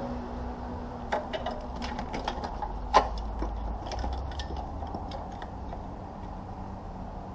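Irregular light metallic clicks and taps of hand tools and parts being handled on an open engine's cylinder head, with one sharper clack about three seconds in.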